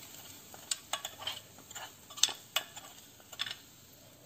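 A steel spoon scraping and clinking inside a small steel tadka pan as the hot ghee tempering is poured out onto spinach gravy, with a faint sizzle underneath. There are about five sharp clinks, spread irregularly.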